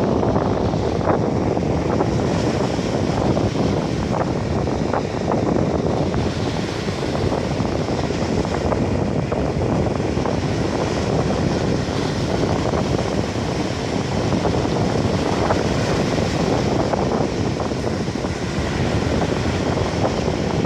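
Steady wind blowing across the microphone over the wash of small Sea of Azov waves on the shore.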